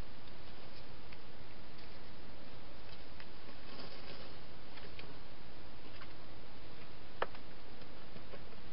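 Faint rustling and scattered small clicks from a wild hedgehog moving through leaves and twigs, over a steady hiss, with one sharper click about seven seconds in.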